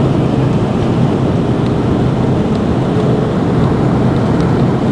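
Steady cabin noise inside an Airbus A330-223 on final approach: the drone of its Pratt & Whitney PW4000 turbofans mixed with airflow over the lowered flaps, heard through the cabin wall and heaviest in the low range.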